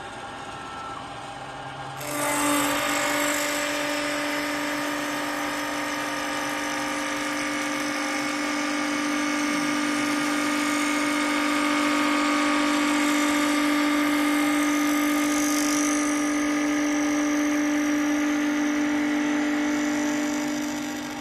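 Multi-function CNC wood lathe machining a wooden workpiece: a steady motor whine with cutting noise starts suddenly about two seconds in, holds evenly, and dies away just before the end over a quieter machine hum.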